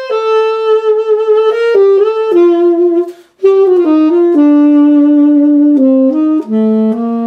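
Buescher Aristocrat tenor saxophone being played: a short melodic phrase of separate notes, with a brief break for breath about three seconds in, ending on a held note.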